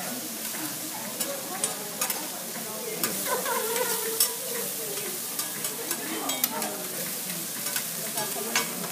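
Pieces of steak sizzling on a hot steel teppanyaki griddle, a steady hiss, with the sharp clicks and scrapes of a metal spatula striking the plate as the chef turns and cuts the meat.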